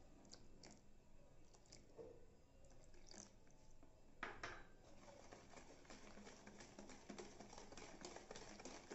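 Faint stirring of liquid cake batter in a bowl: a few light clicks at first, then a quicker run of soft taps from about halfway through.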